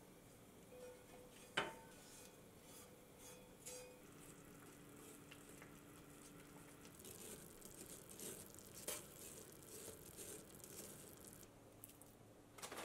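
Faint kitchen sounds while miso is pressed through a fine mesh strainer into a pot of soup. There is a sharp ringing clink about one and a half seconds in, then soft scraping and a few light clicks and clinks of utensils.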